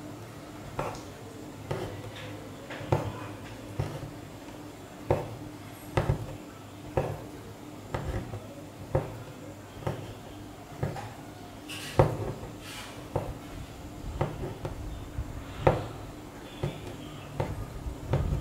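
An embroidery needle punching in and out of tightly stretched fabric, a sharp tap about once a second as each long-and-short stitch goes in, with the thread drawn through between taps.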